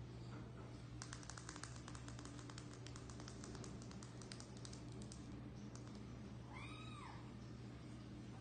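A kitten gives one meow, a single arched call rising and falling in pitch, about two-thirds of the way through. Before it come about four seconds of rapid, light clicking, all over a steady low hum.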